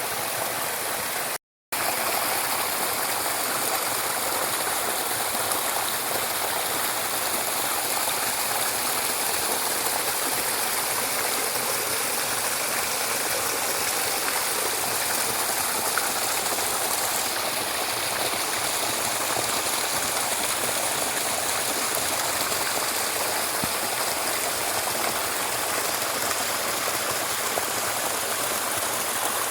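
Stream water flowing steadily, with a brief complete dropout about a second and a half in.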